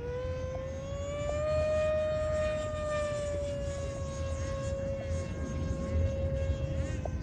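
Electric ducted fan of an E-flite Viper 90mm RC jet whining in flight. A steady high tone climbs slightly over the first couple of seconds, then eases back a little and holds.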